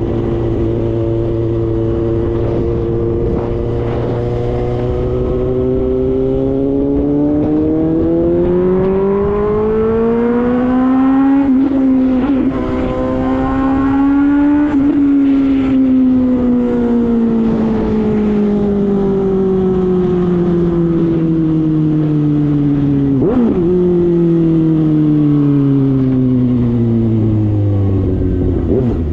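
Suzuki GSX-S750's inline-four engine, loud through a JBK slip-on exhaust with the baffle removed, heard on the move. The revs climb steadily for several seconds with a short break about twelve seconds in, then fall slowly as the bike slows, with a brief blip about two-thirds of the way through.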